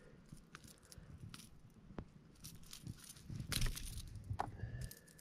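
Faint clicks and light rattling from a hooked ladyfish and a hard-bodied jerkbait lure with its hooks being handled, with a burst of louder handling knocks about three and a half seconds in.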